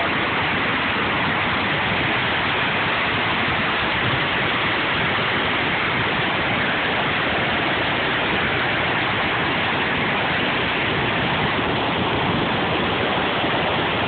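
Whitewater of a mountain waterfall rushing down over rock ledges: a loud, steady rush of water that does not change.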